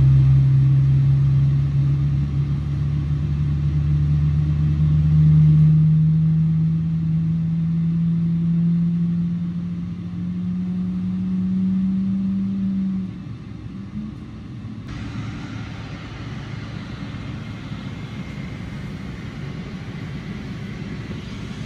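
Jet airliner rumble heard from inside the cabin: a strong low hum slowly rising in pitch for about thirteen seconds, then stopping and leaving a steadier, duller rumble.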